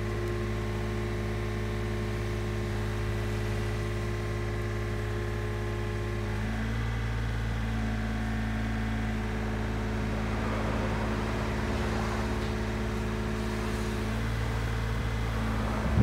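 Komatsu PC35MR-2 mini excavator's diesel engine running steadily under hydraulic load as the machine swings and works its boom and bucket. The engine note shifts about six seconds in and again near the end, with a rushing hiss in the last few seconds.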